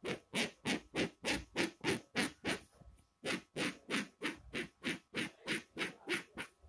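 Fingers scratching back and forth across woven checked cloth in quick, even strokes, about three a second, working loose yarn ends free from the weave. The strokes pause briefly just before the middle, then carry on.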